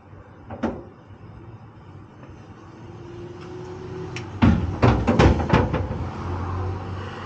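A quick run of five or six loud knocks and clatters of hand tools being handled and set down on the metal tailgate and bed rail under an aluminium truck cap, with a single light click before them.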